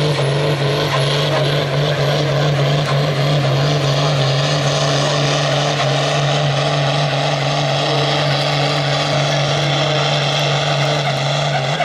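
Ursus farm tractor's diesel engine running flat out under full load as it drags a weight-transfer sled down a pulling track; a steady, unbroken drone that falls away at the very end as the pull stops.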